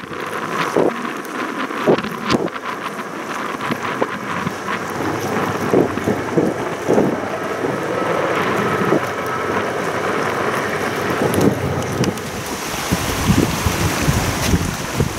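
Gusty wind buffeting the microphone: an uneven rushing noise with irregular thumps and a low rumble that grows stronger about two-thirds of the way in.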